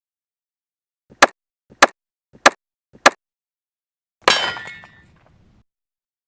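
Four short, sharp hits about half a second apart, each with a faint click just before it, then one metallic clang that rings out and fades over about a second.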